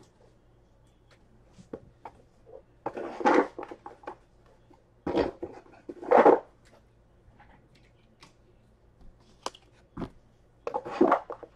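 Hands moving stacks of trading cards on a table: several short bursts of rustling and sliding, with scattered small taps and clicks in between.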